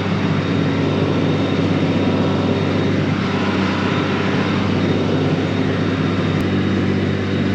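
Tractor engine running steadily at raised throttle, powering a round baler as it starts baling.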